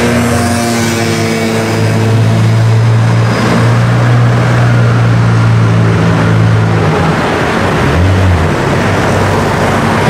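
Pagani Zonda F's Mercedes-AMG V12 driving off at low revs with a steady, deep engine note. The note drops away about seven seconds in, and comes back briefly a second later.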